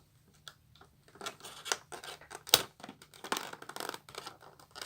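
Plastic packaging of a collectible figure being cut open: a run of irregular snips and scratches, the sharpest about halfway through.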